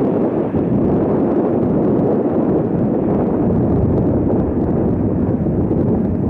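Jet airliner engines heard at close range: a loud, steady rush of noise with no clear tone.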